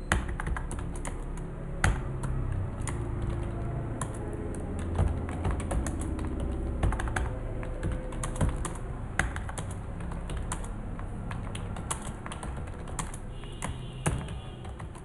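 Typing on a computer keyboard: irregular keystroke clicks in short runs, over a steady low hum.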